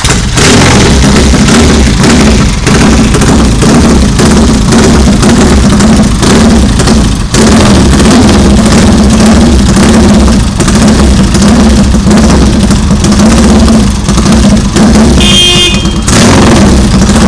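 A Triumph Tiger parallel-twin motorcycle engine, just started, running loud and rough through straight pipes, its note rising and falling slightly.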